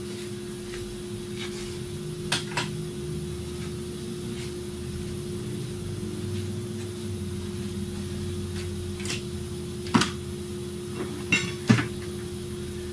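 Steady low machine hum of shop equipment, with a few short sharp knocks of tools or parts being handled, one about two seconds in and a cluster near the end.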